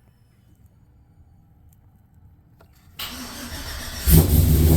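A starter cranks the freshly rebuilt truck V8, with long-tube headers and no catalytic converter, about three seconds in; the engine fires about a second later and settles into a loud, steady run. It is the first start of the rebuilt engine.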